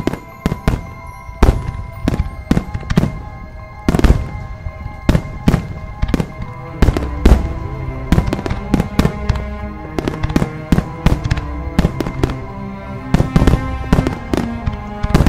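Fireworks sound effect: a string of irregular sharp bangs and pops, one to three a second, over background music with sustained notes.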